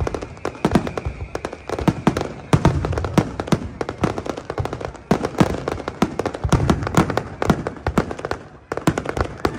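Fireworks display: a dense, irregular run of aerial shell bursts, bangs and crackling reports following one after another. A steady high whistle runs through the first two seconds.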